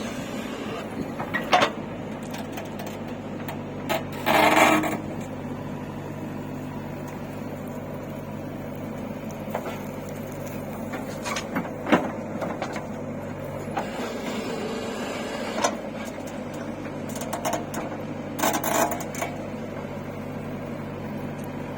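Heavy machine engine running at a steady speed, with a few scattered knocks and two short noisy bursts, one about four seconds in and one near the end.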